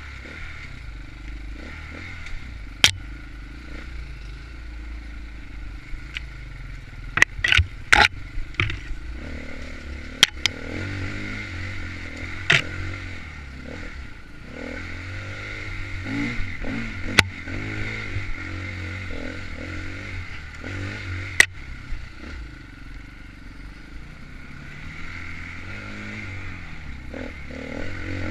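Dirt bike engine running during an enduro race, its revs rising and falling, with the bike's clatter and several sharp knocks, a cluster of them about eight seconds in.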